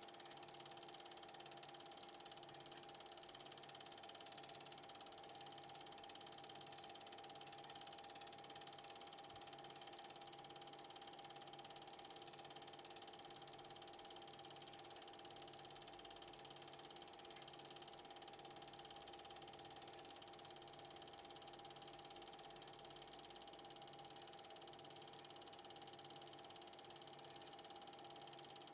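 Film projector running: a faint, steady mechanical whirr and clatter with a steady hum, and a soft low pulse about once a second.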